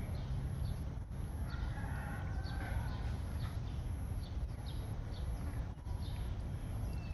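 Chickens clucking in short, repeated calls, with one drawn-out call about two seconds in, over a steady low rumble.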